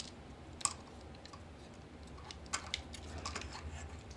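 Scattered small plastic clicks and taps from a Transformers figure's parts being turned and set into place by hand, with a louder click under a second in, over a faint steady low hum.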